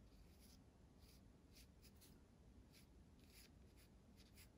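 Faint scratching of a graphite pencil on watercolour paper: a string of short, irregular strokes as a word is written out.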